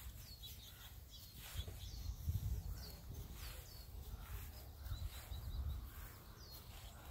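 A songbird giving short, high, down-slurred chirps over and over, about one a second, over a low rumble.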